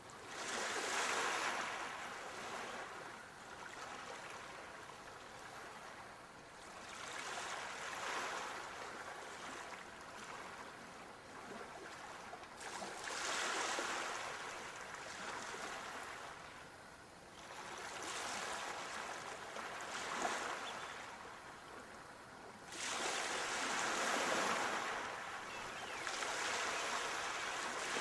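Sea waves washing in, a rushing surf sound that swells and fades about five times, roughly every five seconds.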